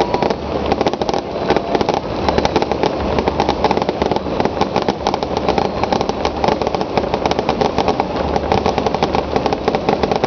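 Fireworks going off in a dense, unbroken crackle of rapid pops and bangs.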